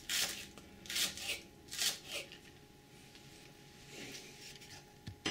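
Kitchen knife slicing through green onion stalks on a thin plastic cutting mat: four crisp cuts in the first two and a half seconds.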